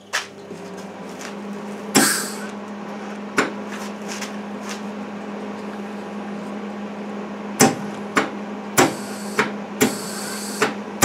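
MIG welder switched on, its transformer humming steadily, with sharp clicks and knocks as the welding torch is handled. Short hisses of CO2 shielding gas come through the torch about two seconds in and again near the end, the gas now turned on.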